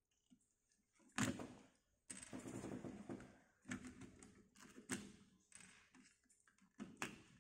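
LEGO Technic plastic parts being pulled apart by hand: a few sharp clicks, with scraping and rattling of pieces in between.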